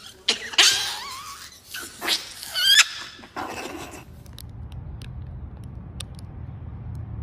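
A small pet animal squealing: several loud, high, wavering cries in the first half, then a faint low rumble with a few soft clicks.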